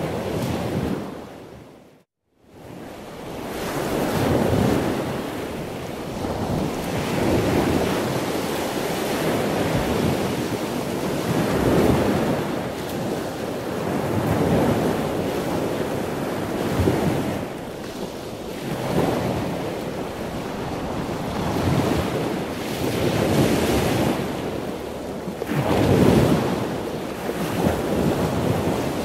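Sea waves washing in, swelling and falling every two to three seconds, with a rush of wind. The sound cuts out abruptly for a moment about two seconds in.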